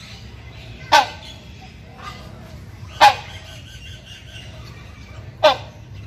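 Hornbill (Buceros) giving three loud, short calls about two seconds apart: a male's mating call to a female.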